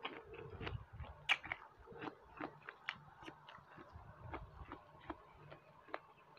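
Close-up chewing and mouth sounds of someone eating: irregular wet clicks and smacks, several a second, picked up by a clip-on microphone.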